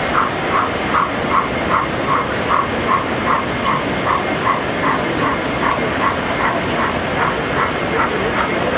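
A regular pulsing beep-like tone, about two and a half pulses a second and very even, over steady background noise of a busy hall.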